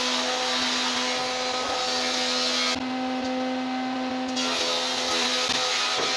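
An electric power tool's motor running steadily: a steady hum over a hiss, dipping slightly in pitch a couple of times.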